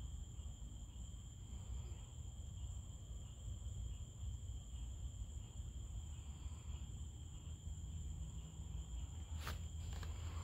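Night-time crickets trilling steadily in one unbroken high note, over a constant low rumble, with one sharp click about nine and a half seconds in.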